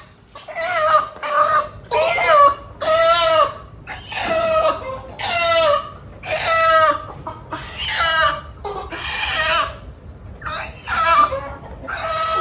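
Chicken calling loudly over and over, short harsh squawks about one a second.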